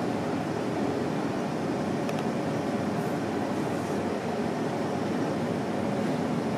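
Steady, even background noise with no distinct source, like a machine hum or a busy room, with a faint click about two seconds in.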